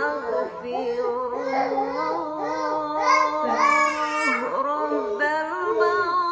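A high, child-like voice singing a melody in held notes that slide from pitch to pitch, as in a children's song.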